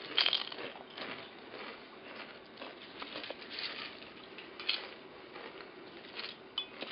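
Crisps being taken from a bowl and eaten: light, irregular crunching and crackling, busiest about the first second.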